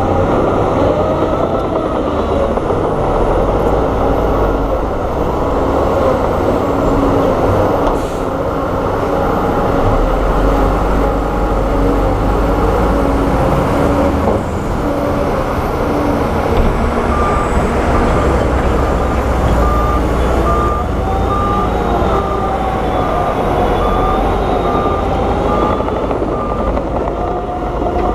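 Diesel engines of heavy earthmoving machines, bulldozers and dump trucks, running steadily under load with shifting engine pitch. In the second half a reversing alarm beeps evenly, about once a second.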